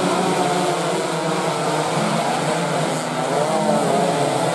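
A pack of stock 116 cc two-stroke underbone racing motorcycles running at high revs as they race past together, many engine notes overlapping and shifting in pitch.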